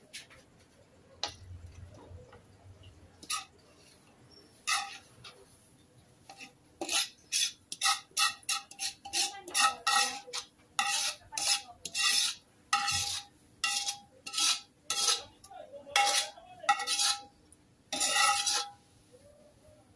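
A metal spatula scraping and knocking against a metal wok as the cooked filling is scraped out onto a plate. It is a quick, uneven run of scrapes and clanks with a ringing metallic note, sparse at first and dense from about seven seconds in until near the end.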